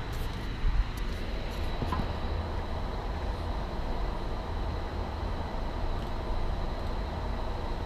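Steady low rumble and hiss of an air-conditioned office, with a few faint clicks from keyboard and mouse and a brief bump just under a second in.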